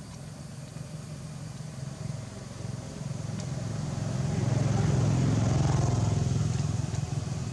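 A motor vehicle engine passing by, growing louder to a peak about five seconds in, then fading.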